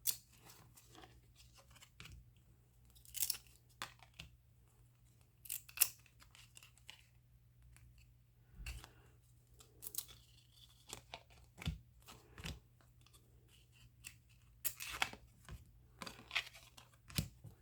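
Trading cards being handled and flipped through one by one: quiet rustling and sliding with scattered sharp snaps of card stock.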